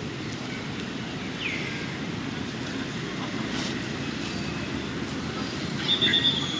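Steady low background rumble, with a short falling high squeak about a second and a half in and a brief high tone with a few louder pulses near the end.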